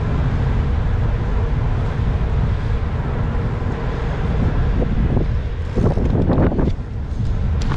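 Wind buffeting the microphone of a camera on a moving bicycle, a steady low rumble with road noise beneath it, and a short louder burst about six seconds in.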